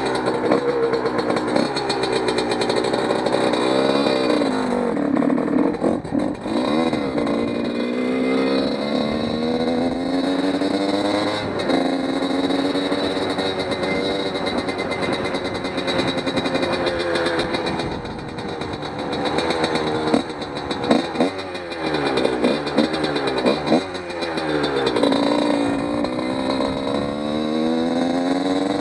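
1997 Yamaha YZ125 125cc two-stroke single engine being ridden gently. Its pitch climbs in long rises and drops back between them, holds fairly steady for a few seconds, then goes through several short up-and-down blips. The engine is being broken in after a new top end, so it is kept off full throttle.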